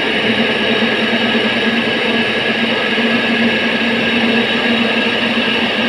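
Cattle-feed pellet plant machinery running under power: a loud, steady mechanical drone with constant hum tones.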